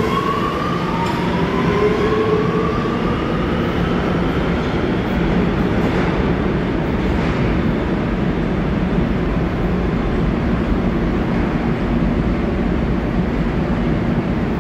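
A New York City Subway R211 train pulls out of an underground station. Its traction motors whine up in pitch as it accelerates over the first two seconds or so, then the wheels run on the rails with a steady rumble as the train goes away down the tunnel.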